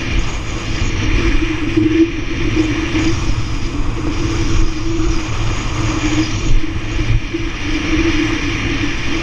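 Speedboat engine running steadily under way: a continuous drone over a heavy low rumble.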